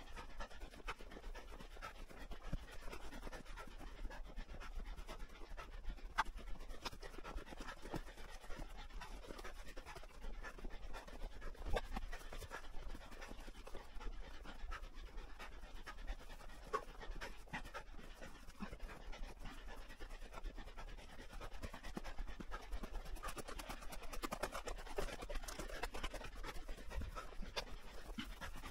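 Steady hard panting close to the microphone, with footsteps in snow.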